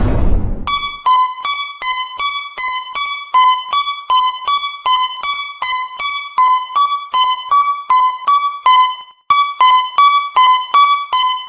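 Japanese railroad crossing warning bell ringing in a fast, even rhythm, its strokes alternating between two close pitches; it breaks off briefly about nine seconds in and starts again. A rushing noise fades out in the first half second.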